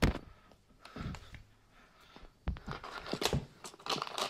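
Handling noise: a sharp thump right at the start and another about a second in, then a run of clicks and rustling in the second half, as an air suspension strut is moved and turned over on a quilted moving blanket.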